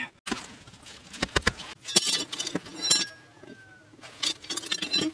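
Steel rebar rods being handled and laid across mud-brick walls: a run of sharp metallic clinks and scrapes, with a few dull knocks about a second in.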